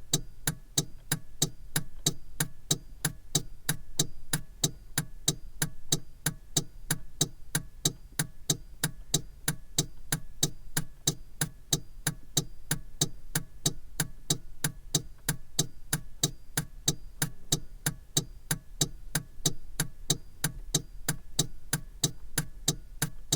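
Car turn-signal indicator relay ticking steadily in an even tick-tock rhythm, about three clicks a second, over a low hum.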